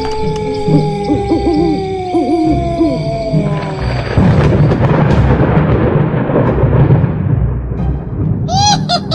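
Background music: held tones with short wavering calls over them. From about four seconds in, a loud noise wash like a thunder effect takes over and fades, and a fast repeating beat starts near the end.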